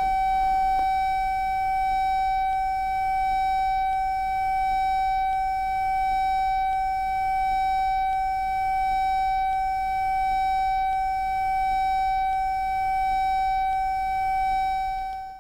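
Steady 765 Hz tone from a frequency generator, played through a car-audio loudspeaker into a closed Kundt's tube and tuned to the tube's third resonance, so a standing wave forms inside. One high tone with fainter overtones, its loudness rising and falling slightly about every second and a half, stopping abruptly at the end.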